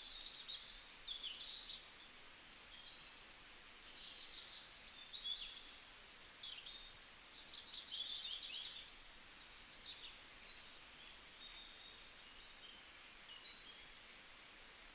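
Birdsong: several small birds chirping and trilling in high, quick overlapping phrases, faint against a light background hiss.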